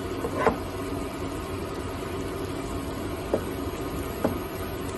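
Pork cubes cooking in a little water in a frying pan, a steady hiss, with three light knocks of a spatula against the pan.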